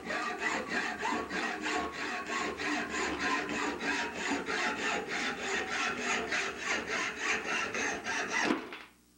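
Hacksaw cutting through metal bar stock clamped in a bench vise, in quick even strokes at about four a second. The sawing stops near the end.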